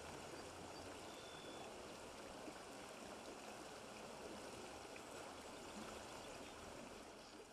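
Faint, steady sound of running water.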